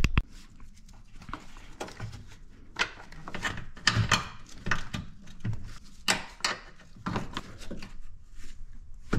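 Scattered light knocks, clicks and rubbing from gloved hands handling parts in a car's engine bay.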